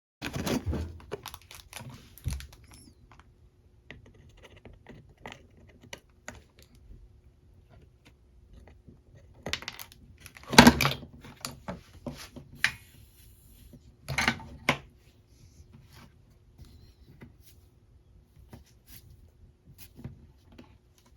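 Bench-work handling noises from small parts and tools on a dehumidifier's circuit board: scattered clicks, taps and rustles. A louder knock comes about ten and a half seconds in and two sharp clatters near fourteen seconds, over a faint steady hum.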